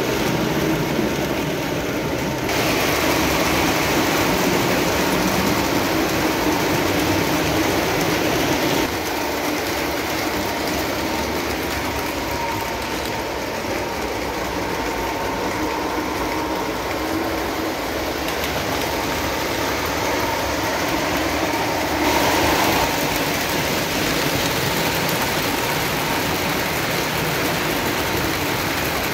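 Lionel O-gauge model trains running on three-rail track, a steady mix of motor hum and wheels rolling over the rails. The sound shifts abruptly a few times.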